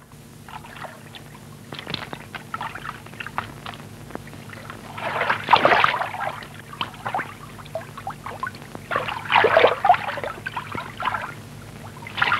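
Water splashing and sloshing in irregular bursts, loudest about five seconds in and again about nine seconds in, as a figure moves through the water. It comes from an old film soundtrack that carries a steady low hum.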